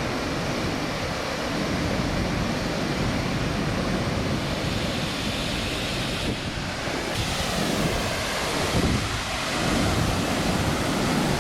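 Steady wind buffeting the microphone over rushing sea water, a continuous roar that brightens and hisses a little more past the middle.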